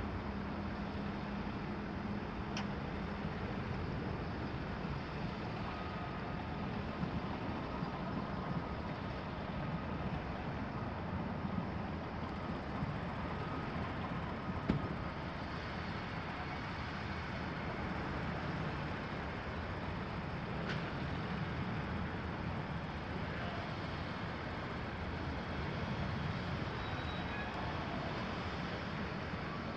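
Engines of earthmoving machines running steadily: a wheeled excavator, a wheel loader and a tractor at work. Three sharp knocks break through, the loudest about halfway through.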